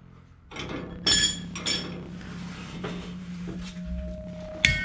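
Steel suspension hardware and hand tools clinking and clanking as a leaf-spring shackle and its bolt are handled into place: a few sharp, ringing metallic clinks, then a louder clank near the end.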